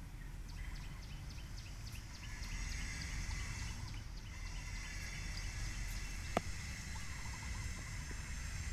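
Birds chirping in quick, short calls over a steady low rumble, with one brief sharp click about six seconds in.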